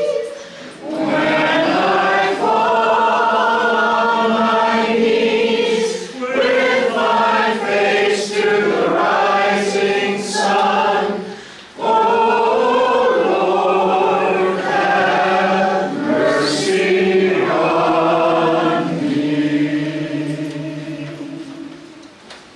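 A congregation singing a hymn together in sustained phrases with short breaks between them, dying away near the end.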